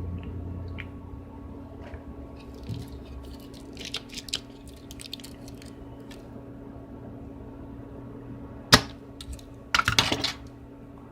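Scattered light clicks and taps of small tools and parts being handled on a workbench, with one sharp click near the end and a quick cluster of clicks after it, over a steady electrical hum.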